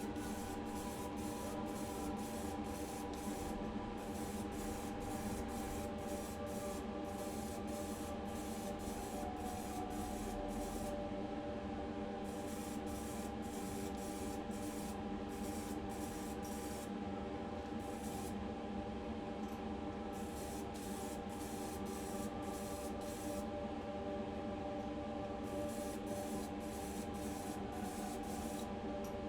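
Primer being sprayed onto a diecast car body: a continuous, even spray hiss with a steady hum underneath.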